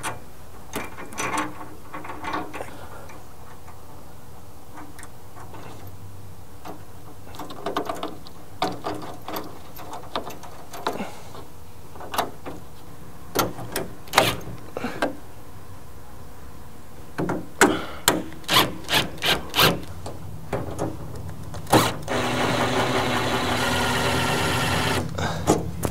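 Light metal clicks and taps as lock nuts and flat washers are handled and threaded onto the grille's studs. About 22 seconds in, a cordless power tool runs steadily for about three seconds, spinning a 10 mm deep-well socket to run down a lock nut.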